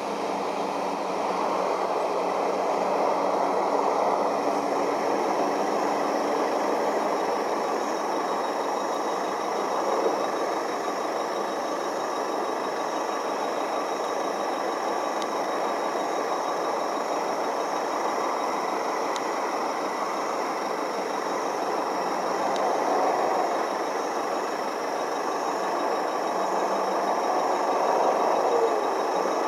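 Truck engines idling in stopped traffic, a steady noise without a break.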